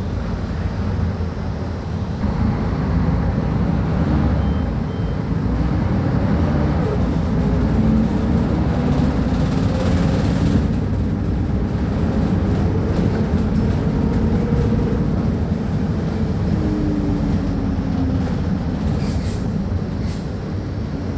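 Mercedes-Benz O500UA articulated bus's diesel engine running under way, a loud steady rumble whose pitch rises and falls several times as it pulls through the ZF Ecomat automatic gearbox. A few short clicks or rattles come near the end.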